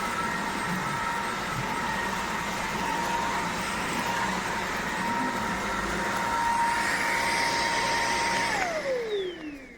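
Tineco A30S cordless stick vacuum running with a steady high motor whine, then switched off near the end, the whine falling away as the motor spins down.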